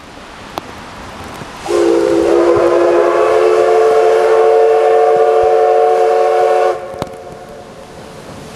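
Steam whistle of JNR Class C11 locomotive No. 207, the lead engine of a double-header, sounding one long blast of about five seconds. It starts sharply about two seconds in and cuts off cleanly, several steady tones sounding together. The blast is the locomotive's signal for entering the bridge, heard over a steady hiss of rain.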